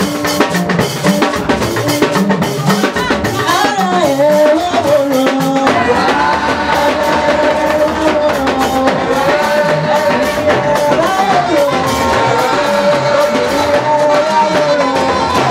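Church choir singing an anthem to drum accompaniment, with long held notes from about six seconds in.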